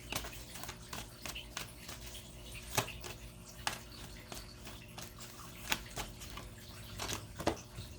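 Tarot cards being handled and laid out: scattered light clicks and taps over a low steady hum.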